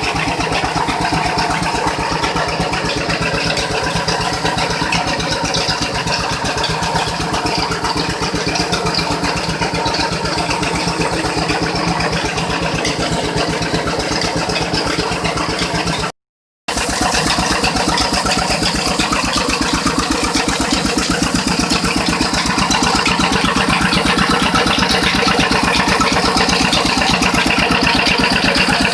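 Rice mill running: a steady mechanical drone with a fast, even pulse that does not let up. The sound cuts out completely for about half a second around sixteen seconds in, then carries on unchanged.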